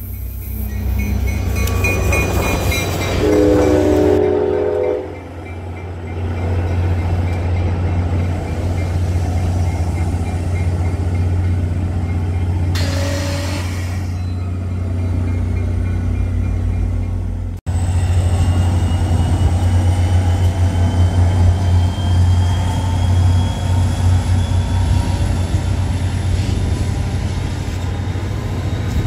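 Diesel passenger locomotive (an NJ Transit GP40PH-2B) running through at speed with a heavy low engine rumble, sounding one chord horn blast a few seconds in. Its passenger cars then roll past with a fluttering rumble from the wheels.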